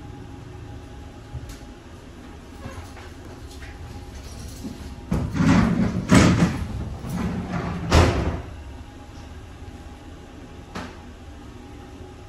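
An interior door in a railcar is opened and shut: a loud clatter lasting about three seconds, ending with a bang. It sounds over the steady rumble of the train running.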